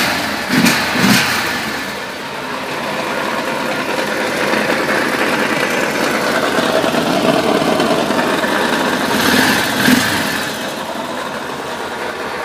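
Honda TRX650 ATV engine running, blipped three times in quick succession at the start, then running steadily with a rise in revs near the ten-second mark before settling back. The owner is trying to track down an extraneous grinding noise from the machine.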